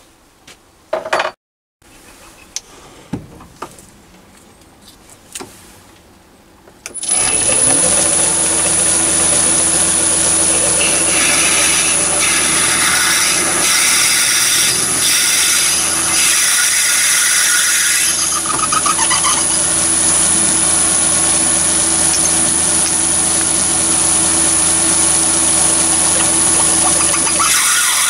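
A few light clicks and knocks of setting up, then about seven seconds in a Chinese mini lathe starts and runs steadily at about 450 rpm with a high steady whine. A twist drill in the tailstock chuck is drilling into the end of a brass piston bar to make the recess for the char cloth.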